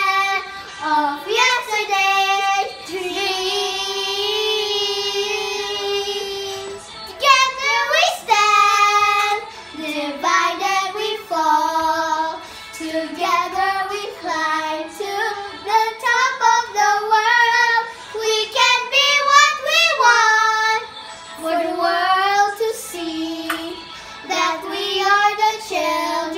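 Two young girls singing a song together, holding one long note a few seconds in, then carrying on with shorter phrases.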